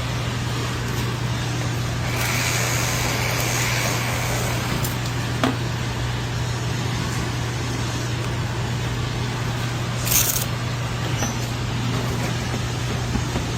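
A car engine idling with a steady low hum, with a hiss about two seconds in and a short sharp hiss about ten seconds in.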